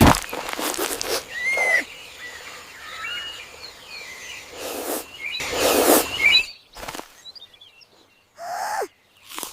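Birds chirping over an outdoor ambience, broken by several loud sudden swishes and hits. It goes quieter in the last few seconds, where a short falling tone is heard.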